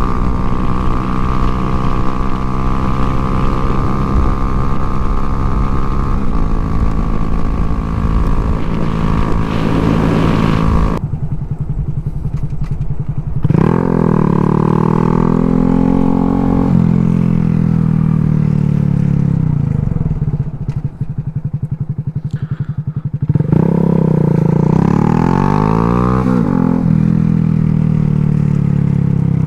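2023 Honda Grom's 124 cc single-cylinder engine under way. For about eleven seconds it holds a steady speed with wind rushing past. Then the wind noise falls away and the engine twice revs up through the gears, its pitch climbing and dropping at each change.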